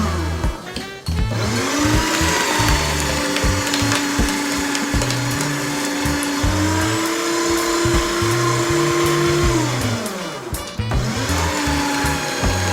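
Small electric motor of a toy shredder running steadily, winding down to a stop about a second in and again near ten seconds, then spinning back up each time, with scattered plastic clicks. Background music with a bass line plays underneath.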